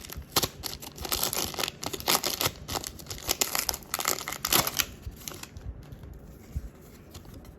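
Foil Pokémon booster pack wrapper being crinkled and torn open by hand, a dense crackling rustle for about the first five seconds, then only a few light clicks and rustles.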